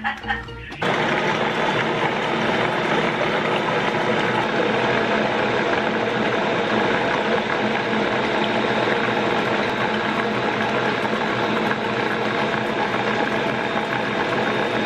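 Bosch stand mixer switched on about a second in and running steadily, its motor and gear drive whirring as it mixes eggs and oil for cookie dough.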